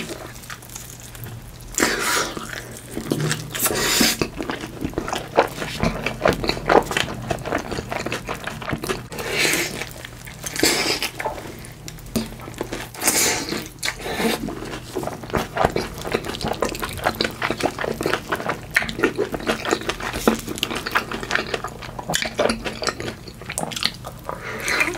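Close-miked eating: big bites of fried chicken dipped in cheese sauce, chewed with dense crackling and wet mouth sounds, with louder bites every few seconds.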